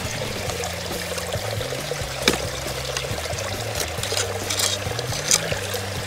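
Shallow creek water trickling and running over rocks, with a single sharp knock about two seconds in and a few small splashes near the end as the nets and boots stir the water.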